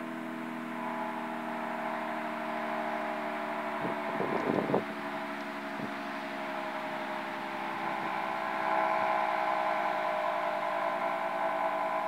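Twin-headed electromechanical warning siren sounding steadily during its monthly test, a sustained chord of tones drifting slowly in pitch and growing louder about nine seconds in. A short burst of noise comes about four seconds in.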